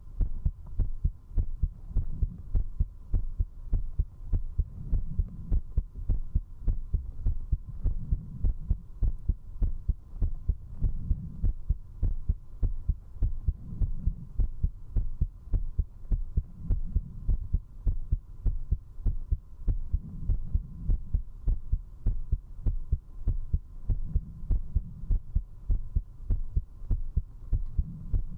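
A person's heartbeat heard through a binaural microphone at zero distance, beating fast and strong in an even rhythm: the quickened pulse of someone who has been drinking alcohol. A faint steady hum sits underneath.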